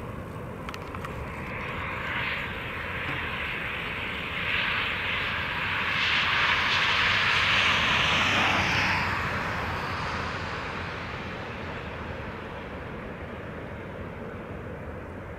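A passing vehicle's noise swells over several seconds, is loudest about seven seconds in with a slight fall in pitch, then fades away again.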